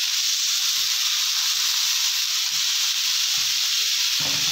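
Minced-meat patties frying in hot oil in a shallow pan: a steady, loud sizzle.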